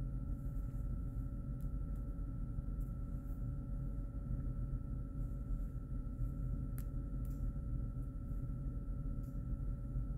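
Room tone: a steady low hum with a faint constant high-pitched tone over it, and a few faint clicks, one a little sharper near the middle.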